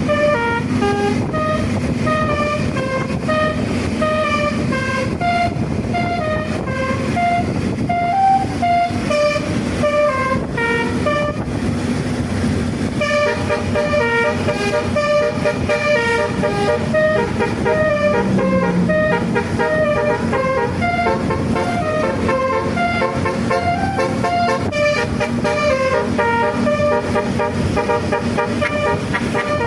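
Bus 'telolet' multi-tone musical air horn playing a dangdut tune, note after note without a break, over the steady rumble of the bus engine.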